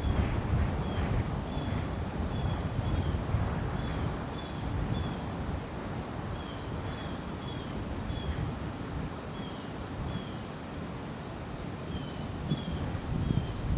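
Wind buffeting the microphone in gusts, a low rumble that eases after the start and swells again near the end. Over it, an animal repeats short high chirps every second or so.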